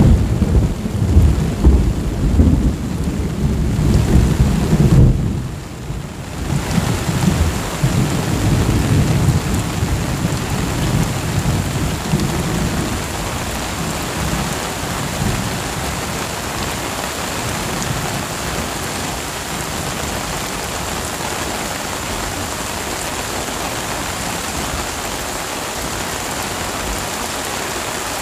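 Thunder rumbling low over steady heavy rain, dropping briefly about five seconds in and dying away around halfway through; after that only the even hiss of rain falling on the beach and sea.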